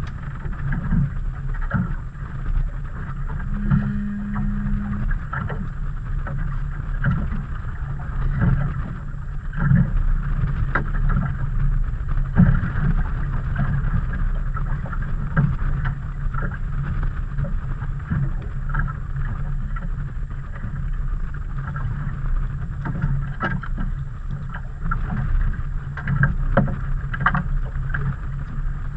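Water lapping and slapping against a small fishing boat's hull under a steady rumble of wind and water, with frequent light knocks. There is a brief low hum about four seconds in.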